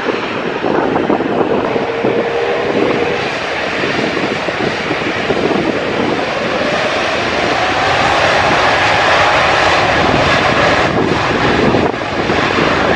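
Airbus A380's four Engine Alliance GP7200 turbofans running loud as the jet turns to line up, their jet blast sweeping over the spectators. A faint rising whine comes through the engine noise, which grows a little louder about eight seconds in.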